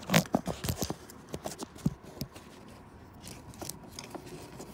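Sharp metal clicks and knocks of a Torx socket on a long extension being seated on the crank position sensor's bolt and worked by hand, several in quick succession in the first two seconds, then fewer and lighter.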